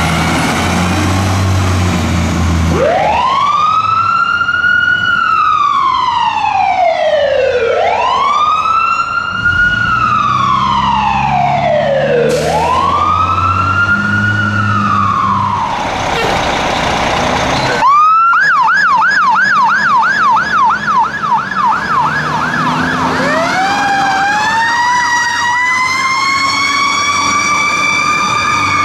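Fire truck sirens: a slow wail rising and falling three times over engine rumble. After a sudden break comes a fast yelp of about four cycles a second, then a slow wail that climbs, holds, and begins to fall near the end.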